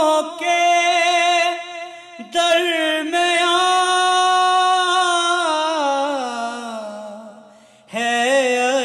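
A man singing solo and unaccompanied, holding long notes with wavering ornaments. The second phrase slides down in pitch and fades away, and a new phrase begins near the end.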